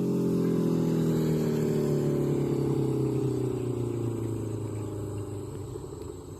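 Honda CB650F inline-four running through an aftermarket Eagle exhaust, its engine note falling steadily in pitch and fading, dying away about five seconds in.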